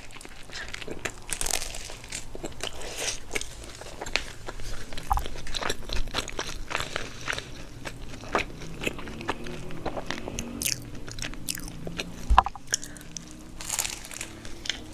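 Close-miked ASMR eating of a hamburger and fried potatoes: irregular crunchy bites and wet chewing, with many sharp crackles.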